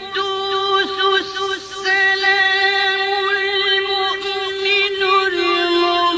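A solo voice chanting in Arabic, holding long, wavering notes in a melodic religious style.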